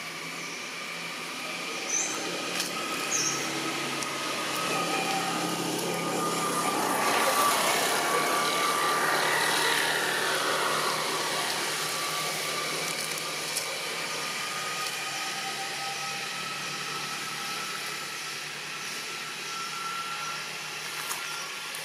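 A steady motor drone with slowly drifting pitch, growing louder about seven seconds in and then fading slowly, with two short high chirps near the start.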